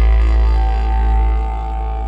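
Intro music: a deep, steady drone with held tones above it, fading out near the end.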